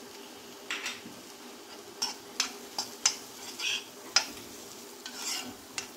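A spoon stirring and scraping chickpeas around an iron kadai, with irregular clinks and scrapes against the pan over a faint steady sizzle of the chickpeas frying in a little oil.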